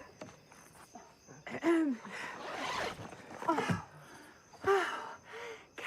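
A man and a woman moaning and gasping during sex, a few short voiced moans rising and falling in pitch.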